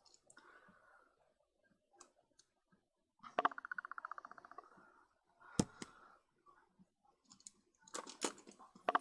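Small lens parts and tools being handled: a few sharp clicks and taps, and a fast ratcheting rattle about three seconds in lasting over a second, with another starting near the end.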